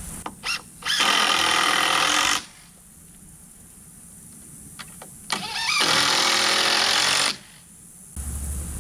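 Cordless drill running in two bursts of about a second and a half each, driving fasteners into a timber beam, with a few short clicks just before each burst.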